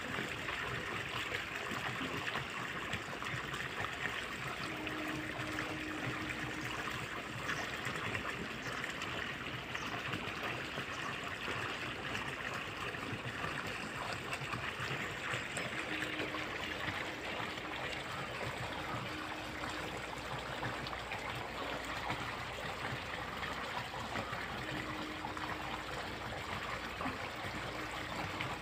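Steady trickling, running water in a concrete fish-farming tank, with a faint hum coming and going.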